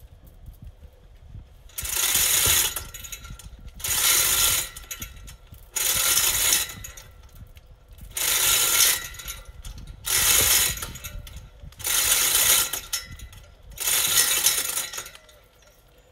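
Manual chain hoist worked by hand: its chain rattles and clicks through the hoist in seven pulls, about one every two seconds, lifting a hydrangea stump out of the ground.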